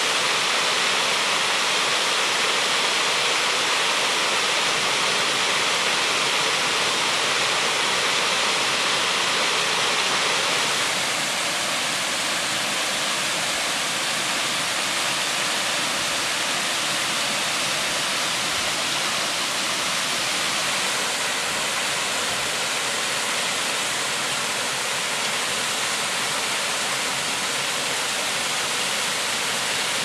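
Waterfall spilling in thin sheets over a layered rock ledge and splashing onto the rocks below: a steady rush of falling water, which shifts a little about eleven seconds in.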